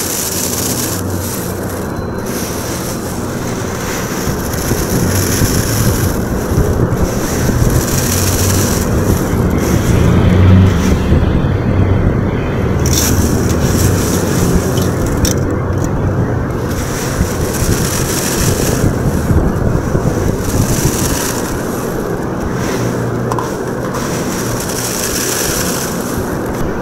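Cornflakes being crushed and rubbed between the hands in a stainless-steel bowl: a continuous crunching that comes and goes with the handfuls, over a low rumble.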